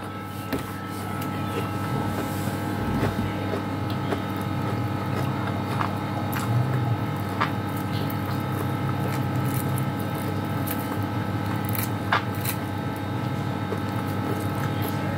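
Eating sounds: fingers pulling apart fried fish and chewing, heard as a few small clicks and smacks over a steady low hum.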